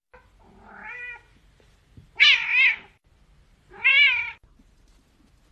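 A domestic cat meowing three times: a quieter call about a second in, then two loud calls with a wavering pitch, about two and four seconds in.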